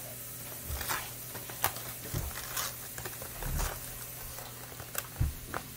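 Aluminium foil crinkling as a cooked foil packet is pulled open by hand, in scattered sharp crackles.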